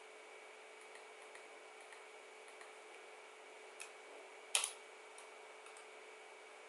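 Computer mouse clicking over a faint steady hiss: a few light ticks, a small click a little under four seconds in, then one sharp, louder click about half a second later.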